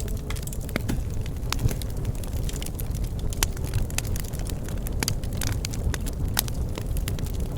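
Bonfire burning, with a low steady rumble of flames and irregular sharp crackles and pops of burning wood.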